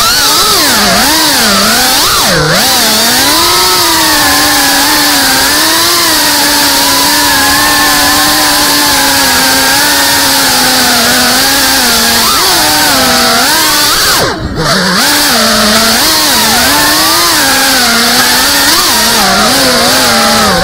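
GEPRC CineLog35 FPV drone's brushless motors and propellers whining, the pitch swooping up and down with the throttle. The pitch drops sharply about two seconds in, and the sound dips briefly about fourteen seconds in, as the throttle is chopped.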